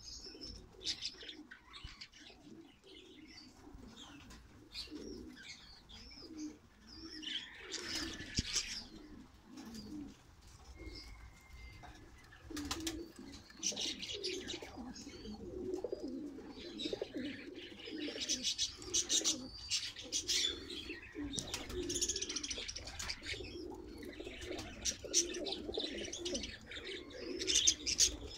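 Domestic pigeons cooing repeatedly in a loft, mixed with frequent high chirping.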